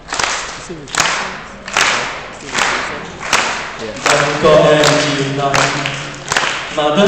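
Hand claps keeping a slow, even beat, about one every 0.8 seconds, echoing in a large hall. About four seconds in, a man starts singing a cappella over the claps.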